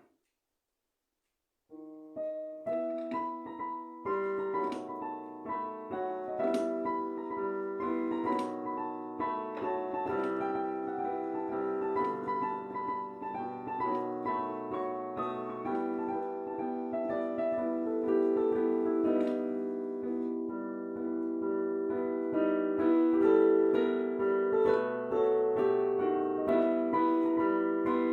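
Piano playing, starting about two seconds in with a few sparse notes and then filling out into a fuller run of notes and chords.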